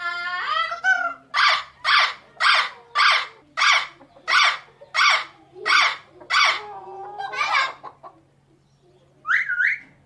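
A parrot calling: a gliding call, then a run of about ten loud squawks at roughly two a second, then a lower call and two quick rising whistles near the end.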